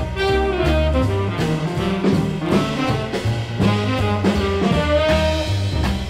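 Swing jazz playing from a vinyl LP: a saxophone and brass ensemble over stepping bass notes and a steady swing beat.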